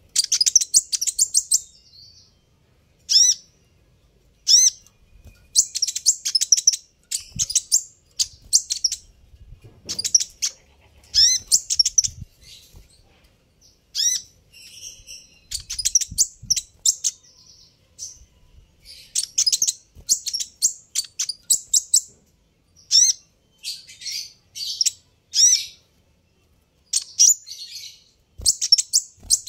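Sunbird (kolibri ninja) chirping and twittering in quick bursts of very high, rapid notes, each burst a second or two long with short pauses between.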